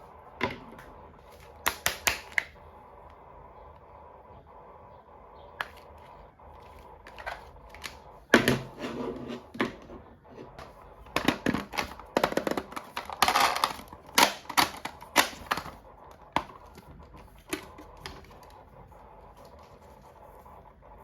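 Hands unboxing small plastic toys: a run of sharp clicks, taps and short crinkly rustles of plastic packaging, coming in clusters and busiest in the middle.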